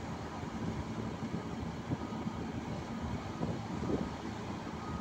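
Diesel engines of a Caterpillar crawler excavator and bulldozers working, a steady low rumble.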